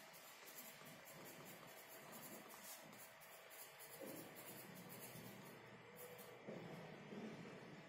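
Pencil scratching faintly on paper as a word is written by hand, in short uneven strokes.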